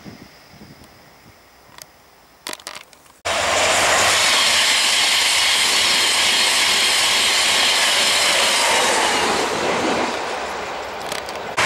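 Faint outdoor ambience with a few light clicks. About three seconds in, the loud rush of a Virgin InterCity 125 (HST) diesel express passing at speed cuts in abruptly, with an engine note that falls slowly in pitch as it goes by.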